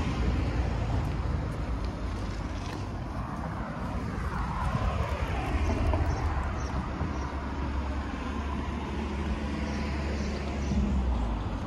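Town street traffic: cars driving past on the road, with a low engine hum that drops away near the end.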